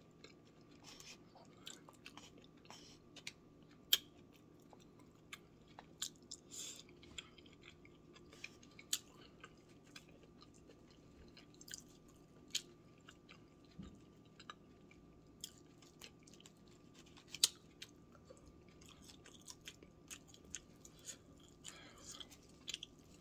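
Close-up chewing of a mouthful of food, with irregular wet mouth smacks and sharp little clicks scattered throughout, over a faint steady hum.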